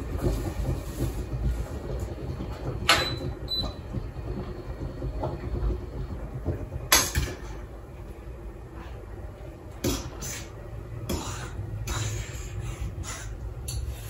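A metal utensil knocking and clinking against a stainless steel pot while spaghetti is stirred at the stove: a scattered string of sharp knocks, some with a brief ring, the loudest about seven seconds in, over a steady low hum.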